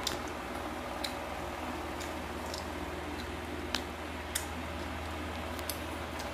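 Steady low hum with about six short, sharp clicks at irregular intervals.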